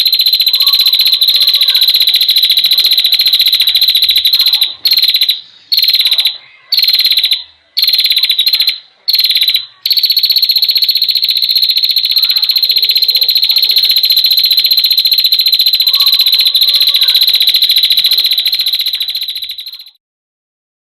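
A loud, high-pitched continuous buzzing trill from an animal call, broken by several short gaps between about four and ten seconds in, then cutting off abruptly just before the end. Fainter, lower chirping calls run underneath.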